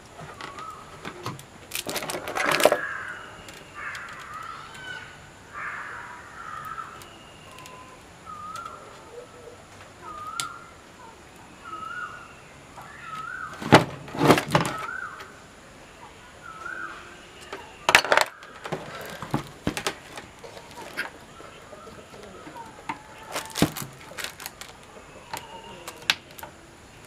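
Sharp clicks and knocks of a CRT TV flyback transformer being handled and fitted into its circuit board, the loudest about two seconds in, around fourteen seconds in, and again near eighteen and twenty-three seconds. Behind them a bird calls over and over with short chirping notes, about one a second through the first half.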